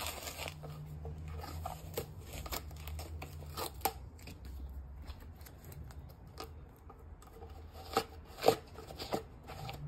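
Adhesive tape being peeled and unwound from a cricket bat handle: an irregular crackling rip with a few sharp snaps, the loudest about eight seconds in.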